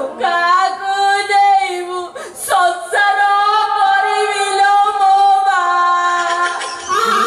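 A woman singing in long held notes with a wavering pitch, a single voice breaking off briefly about two and a half seconds in.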